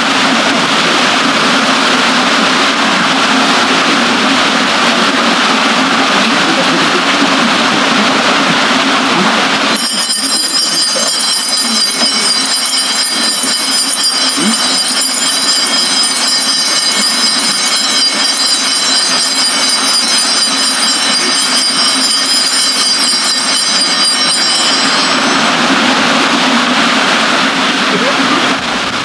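Steady rushing of water from a water wheel and a river. About ten seconds in, a high, steady squeal of several tones comes in over it, lasts about fifteen seconds and stops.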